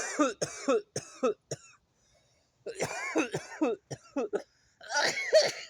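A man coughing in three bouts of several coughs each: a smoker's coughing fit from inhaling cannabis smoke.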